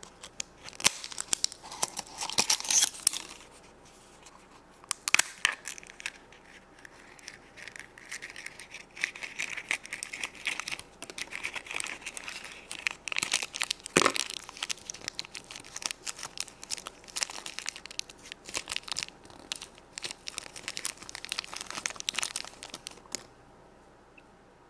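Toy packaging being torn open and crinkled by hand, a dense run of crackling and rustling that stops a second or so before the end.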